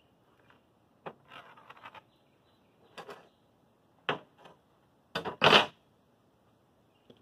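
Sharp clacks and short scrapes of a metal straightedge being slid across and set down on an OSB sheet, a handful of separate knocks with the loudest a little after five seconds.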